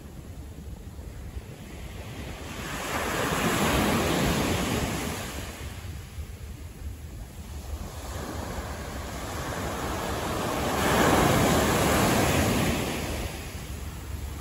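Two vehicles passing one after another on a city road, each a swell of tyre and road noise that rises and fades over a few seconds, over a steady traffic hum.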